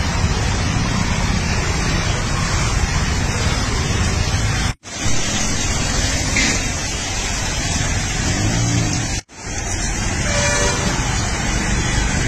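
Steady road traffic noise, broken by three brief sudden dropouts.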